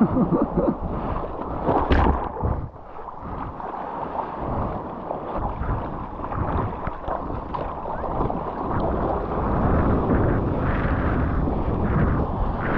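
Water rushing and splashing around a surfboard, with wind buffeting the microphone of an action camera on the board. There is a sharper splash about two seconds in.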